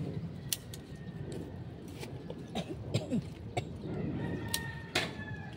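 Scissors snipping leafy vine stems: a string of sharp clicks, the loudest about half a second in and near the end, over leaves rustling as the stems are handled.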